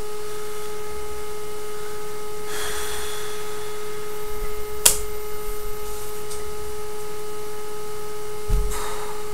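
Steady electrical hum made of a few constant tones, with two brief rustles and one sharp click about five seconds in.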